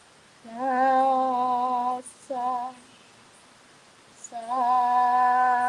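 A woman's voice singing long held notes at a steady pitch with no clear words: a long note about half a second in, a short one just after two seconds, and another long note from just past four seconds.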